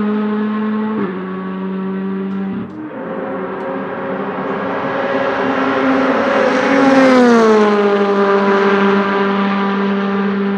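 Honda Civic Type-R WTCC TC1 race car's 1.6-litre turbocharged four-cylinder engine at full throttle. Its note steps twice in the first three seconds, then climbs as the car accelerates and drops in pitch as it passes close by, loudest about seven seconds in.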